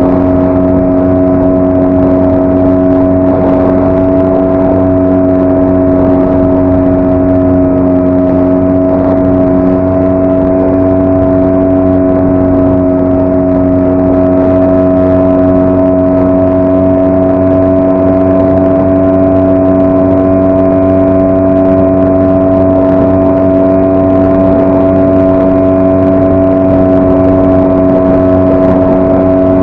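5 hp outboard motor running at a steady throttle, pushing a small inflatable boat along, with an unchanging engine note.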